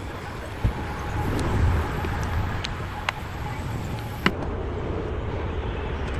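A few light clicks of small metal outboard carburetor parts being handled as the carburetor is put back together, about four in all, over a steady low background rumble.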